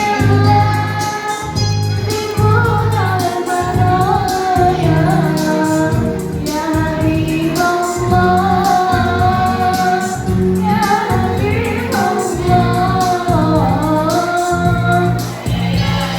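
A choir of school teachers singing a song together with instrumental accompaniment; a low bass line pulses under the voices.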